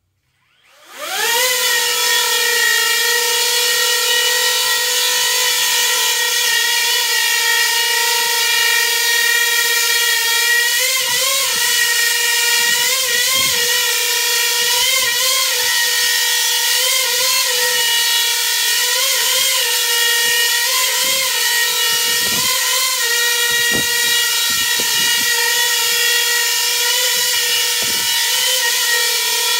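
Small coaxial drone's motors and counter-rotating propellers spinning up about a second in to a steady high whine and holding it. From about ten seconds on, the pitch wobbles briefly every couple of seconds as ArduPilot AutoTune twitches the craft in roll.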